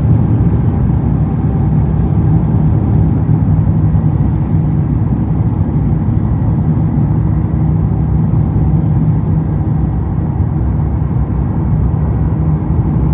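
Airbus A350's Rolls-Royce Trent XWB jet engines heard from inside the passenger cabin as a steady low drone with airflow noise, at high power during departure.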